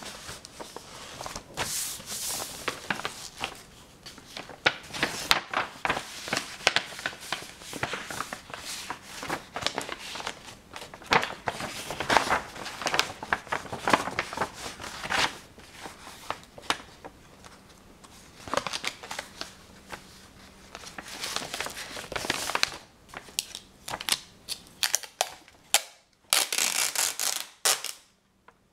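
Objects handled close to the microphone: a dense run of irregular clicks, taps and crinkly crackles, with a hissing rustle lasting about two seconds near the end.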